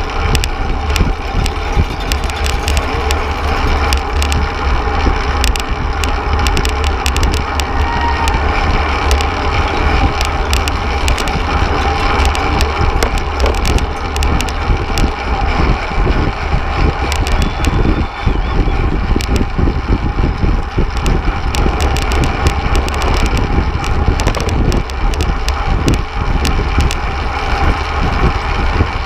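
Wind rushing over the microphone of a camera riding on a fixed-gear racing bike at race speed, a steady heavy buffeting. Road noise and frequent small clicks and knocks run through it.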